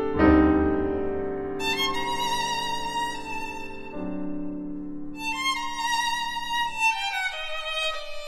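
Background instrumental music: a slow violin melody that comes in about a second and a half in, over sustained low chords that fade out near the end.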